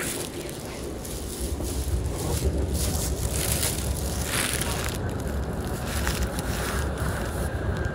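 Running noise inside the carriage of an MCC Lastochka (ES2G) electric train in motion: a steady low rumble of wheels on rails, growing heavier about a second and a half in.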